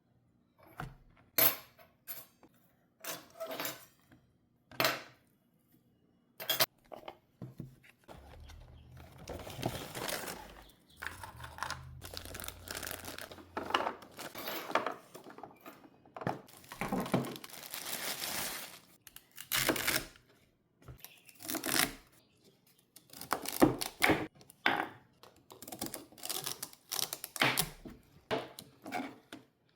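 Snacks and a plastic compartment snack box being handled: sharp clicks and taps as small hard items drop into and knock against the plastic, with a longer stretch of rustling and crinkling, like snack bags being opened and emptied, in the middle.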